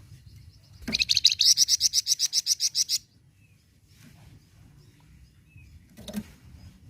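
Flamboyan songbird singing a loud, rapid high trill of evenly repeated notes, about ten a second, lasting about two seconds, followed by fainter chirps and a short call near the end. A low hum runs underneath.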